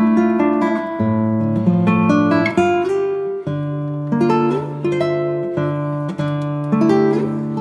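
Background music: a plucked acoustic guitar playing a melody over picked chords, each note struck and fading.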